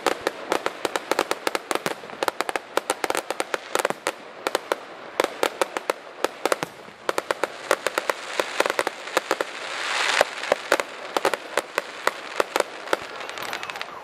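Aerial fireworks crackling: a dense, uneven run of sharp pops from crackling stars, with a hiss that swells and peaks about ten seconds in.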